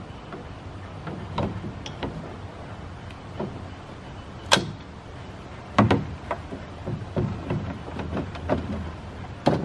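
Knocks, clunks and sharp clacks of a backpack leaf blower being handled and set into a metal trailer-mounted blower rack. The loudest clack comes about four and a half seconds in, a cluster follows a second later, and another comes near the end.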